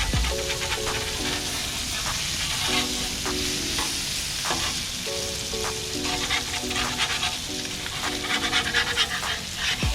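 Food sizzling and frying on a Blackstone 22-inch tabletop griddle, a steady hiss with many small crackles. Background music with a simple melody plays along.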